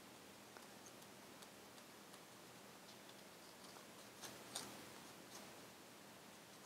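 Near silence, with faint, scattered light ticks from folded craft paper being handled and a toothpick spreading glue on it. The loudest tick comes about four and a half seconds in.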